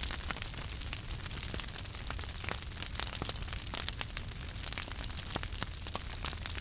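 Wood fire crackling, with irregular sharp pops and snaps over a steady low rumble and hiss.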